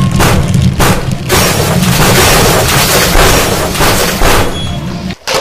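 Loud dubbed-in battle sound effects: a dense run of heavy booms and bangs over a rumbling low end, which cuts off abruptly about five seconds in.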